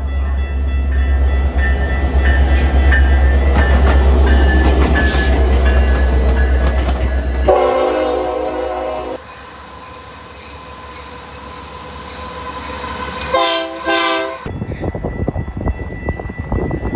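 A passing train with a loud, deep rumble, then a locomotive horn sounding one blast of about a second and a half. Later come two short horn blasts, followed by the rumble of rolling train cars.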